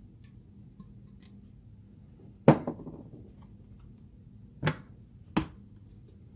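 Three sharp knocks of a kitchen utensil on a hard surface. The first is the loudest, with a brief rattle after it, and two lighter knocks follow about two seconds later, less than a second apart.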